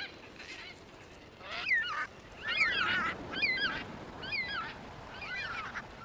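Cockatoos calling: a run of about six short, creaky, wavering calls, one after another, starting about a second and a half in.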